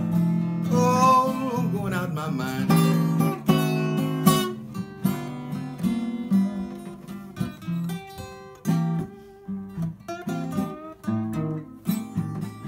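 Acoustic blues guitar playing an instrumental passage: picked single-note lines, some notes bent up and down in pitch, over a repeating bass figure.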